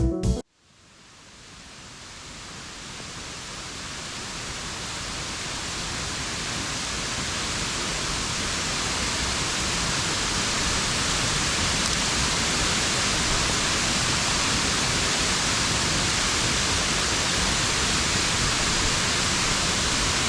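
Steady rush of a waterfall, fading in gradually over about ten seconds and then holding even. Music cuts off just before it, right at the start.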